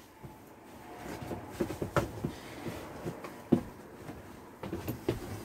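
Movement noise inside a small room: a few soft knocks and rustles from someone moving through it with a handheld camera, the sharpest knocks about two seconds and three and a half seconds in.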